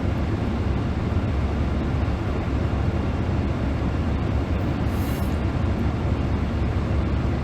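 Steady low rumble inside a truck's cabin, with a brief faint hiss about five seconds in.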